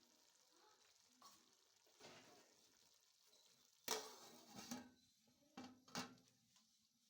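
A spoon stirring food in a cooking pot, with a few sharp scrapes and knocks against the pot. The loudest comes about four seconds in, and a quieter pair follows near the end.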